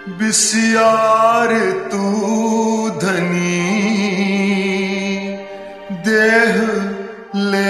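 Man singing a Gurbani shabad in long held, wavering phrases over a recorded instrumental backing track, with short breaks between phrases where the accompaniment carries on.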